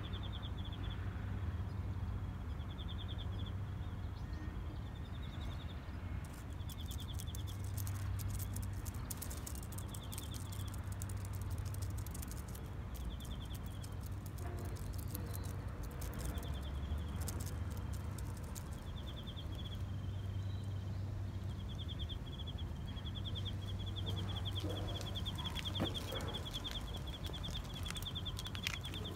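Outdoor park ambience: a steady low rumble, with a short buzzy chirp from an unseen bird or insect repeating every second or two. A run of light crackles, like steps on dry leaves and twigs, comes in the first half.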